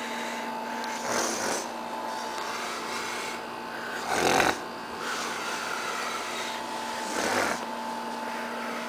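A man snoring in his sleep: three snores about three seconds apart, the middle one the loudest.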